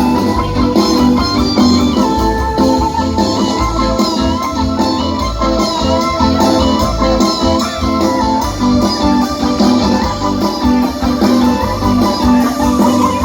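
Live band music with no singing: a plucked guitar melody over keyboard and a steady bass line.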